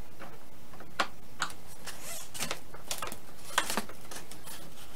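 A handful of irregular light clicks and ticks from a small 2 mm Allen hex driver working a screw out of the rudder hinge of a foam RC airplane, with the tool knocking against the parts as it is handled.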